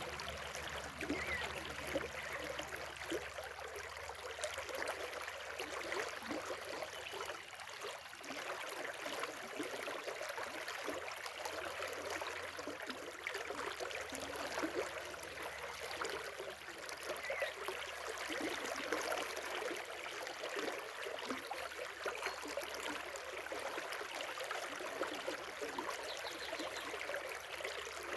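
River water babbling and splashing steadily.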